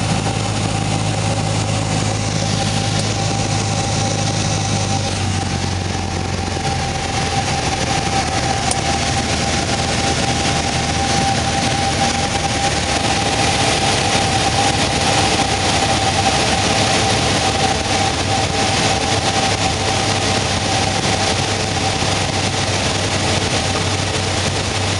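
Cabin noise of a single-engine light aircraft in flight: the piston engine and propeller running steadily with a constant hum and rushing air, heard from inside the cockpit. The low engine note drops slightly about five seconds in, then holds.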